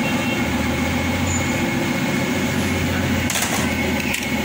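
An engine running steadily, a low even hum, with a couple of short clicks about three and four seconds in.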